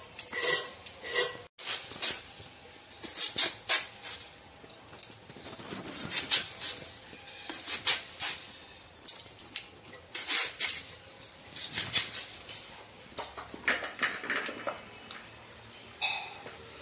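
Raw potatoes being cut on a bonti, the upright fixed Bengali cutting blade: irregular crisp cutting and scraping sounds in short runs, with clinks against steel plates.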